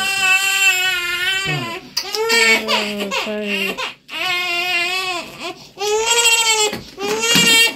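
Baby crying hard in a run of long, high wails with short gasps between them: pain from vaccination shots just given in the thigh.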